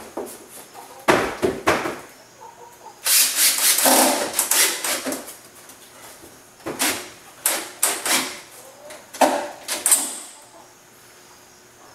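Cordless drill driving screws into a door's hinges in several bursts, the longest starting about three seconds in and lasting about two seconds.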